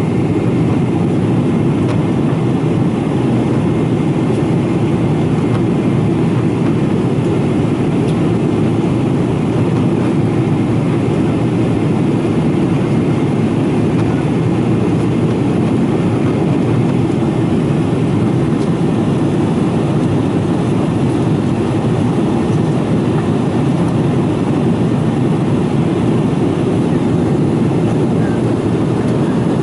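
Steady, low cabin drone of a Boeing 777-200ER in flight, heard from inside the cabin: the hum of its Pratt & Whitney PW4074D engines blended with the rush of air over the fuselage, even and unchanging.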